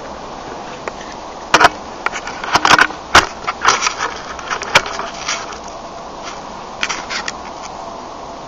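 Irregular sharp clicks and knocks, bunched between about one and a half and five seconds in and a few more around seven seconds, over a steady faint background hum.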